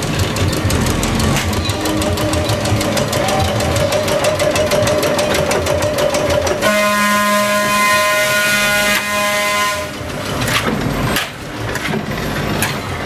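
A Pacific Electric interurban trolley car rolling by with a fast, even rattle and a wavering whine; about seven seconds in its horn sounds one steady blast of about three seconds, followed by a few knocks from the running gear.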